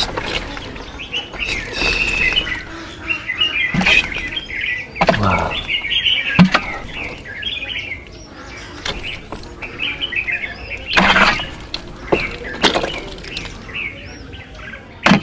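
Small birds chirping in quick, overlapping calls, broken by a handful of sharp knocks and handling noises.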